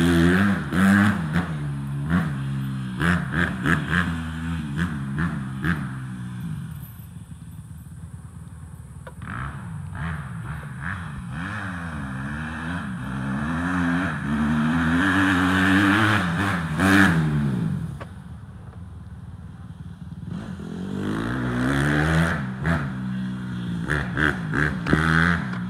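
Motorcycle engine revving, its pitch climbing and dropping back again and again as the throttle is worked and gears change. It swells loud three times and falls quieter in between.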